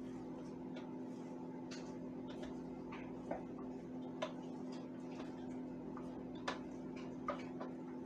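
Countertop blender motor running steadily, chopping cooked chicken, with sharp irregular clicks as a spatula pushes the chicken down into the blades.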